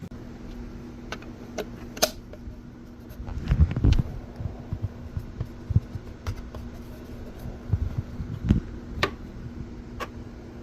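Steady fan-like motor hum, with scattered clicks, knocks and low thumps of things being handled, the heaviest clustered about three and a half seconds in and again near nine seconds.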